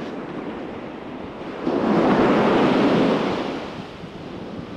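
Surf on the beach: a steady wash of waves, with one wave breaking louder about a second and a half in and fading out by about four seconds. Some wind on the microphone.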